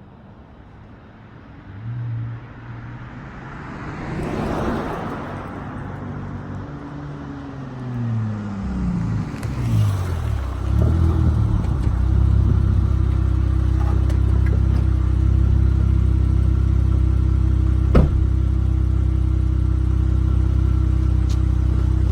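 Dodge Charger SXT's V6 through a Flowmaster Outlaw exhaust: after a passing whoosh, the engine note falls in pitch as it slows, then settles into a steady, loud low drone. One sharp pop stands out near the end.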